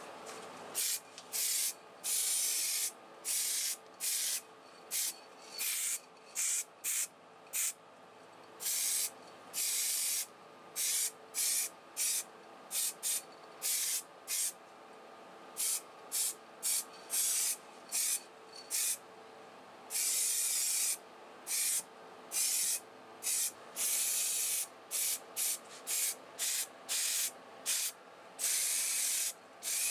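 Aerosol spray paint can hissing in many short bursts, some held a second or more, as metal engine parts are coated. Under it runs the steady hum of the spray booth's extractor fan.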